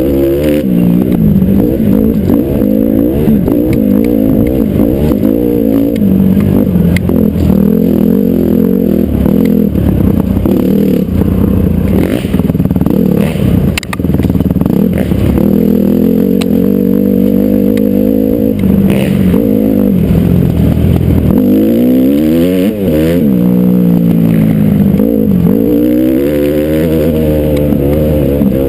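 Honda CRF450R dirt bike's single-cylinder four-stroke engine running hard close to the microphone, its pitch rising and falling again and again with the throttle. A few sharp knocks come around the middle.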